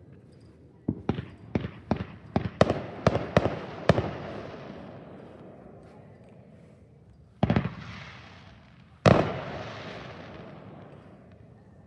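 Fireworks going off: a quick string of about eight sharp bangs over three seconds, then two louder single booms a second and a half apart, each followed by a rumbling echo that dies away.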